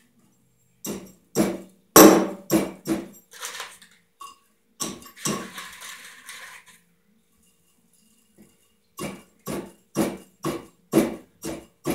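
Repeated sharp knocks as wafers of scrap copper wire are smashed down into a number 6 crucible, in two quick runs of about seven blows each, with a stretch of metal rattling and scraping between them.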